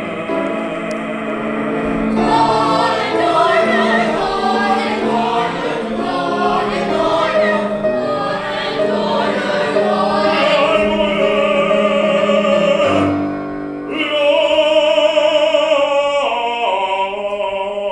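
Opera singing from a youth cast: a group of voices sings over steady accompaniment. The music breaks briefly a little past halfway, then one voice carries on alone with a wide vibrato.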